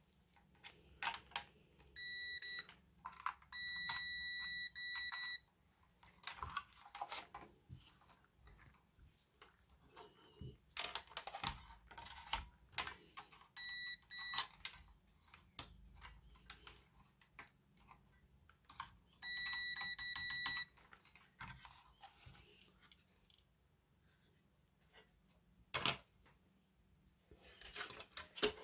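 Digital multimeter's continuity beeper sounding in several steady high beeps, from quick blips to about a second and a half long, each time the test probes meet a low-resistance path on a circuit board. Between the beeps come light clicks and taps of the probe tips against the components.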